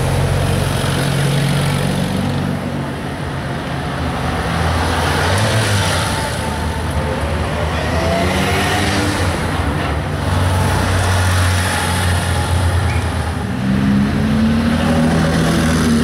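Porsche 911 flat-six engines running at low revs as the cars roll slowly past one after another, a steady low engine note with a slight rise in pitch near the end.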